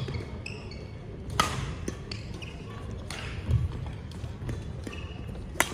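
Badminton rally: sharp smacks of rackets hitting the shuttlecock, loudest about a second and a half in and near the end, with shoes squeaking on the wooden court floor in a reverberant sports hall.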